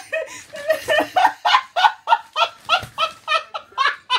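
Small dog barking in quick, evenly spaced yaps, about four a second.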